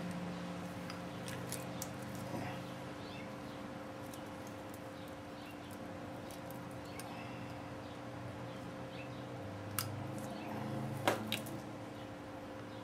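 Light metallic ticks and clicks of a piston ring being spread and fitted onto a Ford 302 piston with a ring expander, with two sharper clicks near the end. A steady hum runs underneath.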